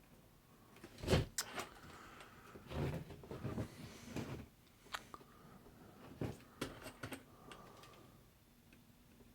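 Scattered clicks and knocks of small tools and parts being handled and set down on a workbench, the loudest about a second in, then two busier clusters.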